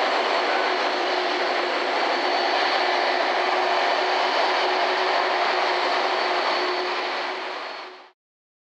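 Steady rushing noise of jet airliners running on an airport apron, with a faint steady whine on top. It fades out and stops about eight seconds in.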